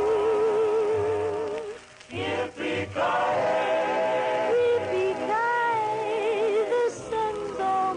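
Music: a vocal group's held harmony notes with vibrato over a low bass line, dropping away briefly about two seconds in before the voices come back in.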